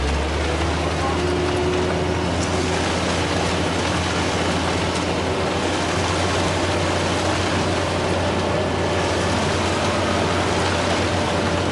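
Heavy vehicle engine running steadily, a constant low hum under an even wash of mechanical noise.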